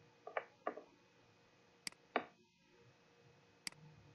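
Computer mouse clicks: about five short, sharp clicks at uneven spacing, heard faintly.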